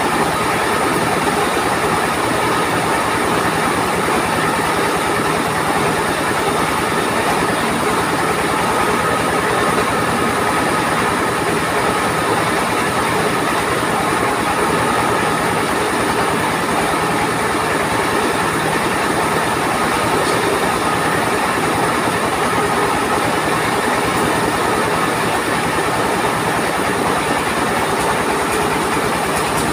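Truck-mounted rice mill running steadily: a single-cylinder diesel engine driving the rice husker and polisher by belts, with a dense, even mechanical clatter.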